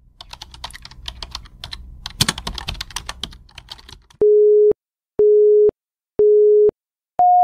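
Typewriter keystroke sound effect, a fast irregular clatter of key strikes for about four seconds. Then film-leader countdown beeps: three half-second beeps a second apart at one pitch, and a higher-pitched fourth beep near the end.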